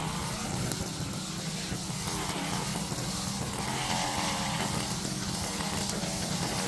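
Small petrol engine of lawn equipment running steadily at a constant speed.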